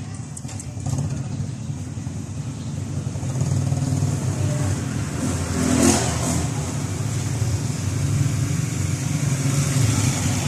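A vehicle engine running steadily with a low rumble, getting somewhat louder about a third of the way in, with a brief louder burst near the middle.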